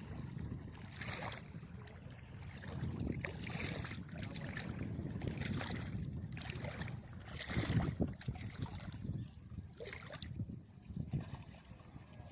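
Feet wading through shallow seawater, with a short slosh or splash at each step coming irregularly about every second or two, over wind rumbling on the microphone.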